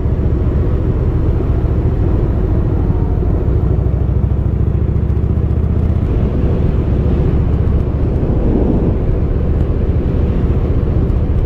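Harley-Davidson V-twin motorcycle engine running steadily under way, a low, even drone.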